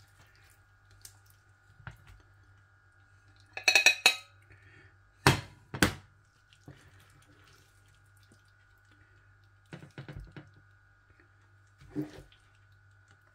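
Metal spoon scooping macaroni cheese out of a ready-meal tray onto a plate: a short ringing clatter about four seconds in, then two sharp taps of the spoon a moment apart, and softer knocks near the end.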